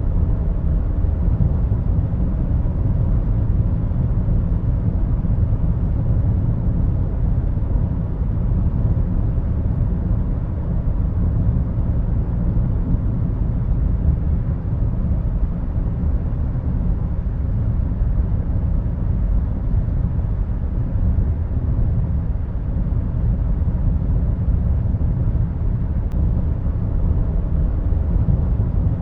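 Steady low rumbling drone of a starship engine sound effect, even and unchanging.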